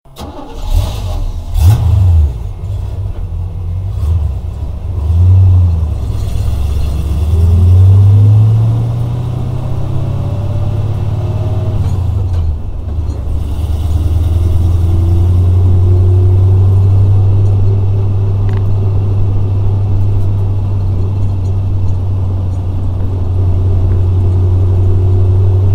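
Engine of a 1980 GMC 3500 one-ton truck, revved three times and falling back between revs over the first dozen seconds, then settling into a steady idle.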